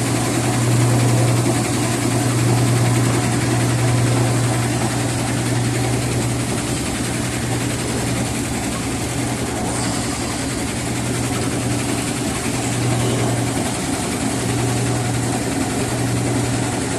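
Whirlpool washing machine running with a loud, steady low hum and rumble that swells and eases every few seconds; the uploader puts the loud noise and shaking down to the spider having jumped off its track underneath.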